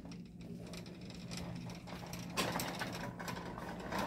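Shopping cart rolling over a hard store floor, its wheels and wire basket rattling with scattered clicks under a steady low hum. The rattle gets denser a little past halfway.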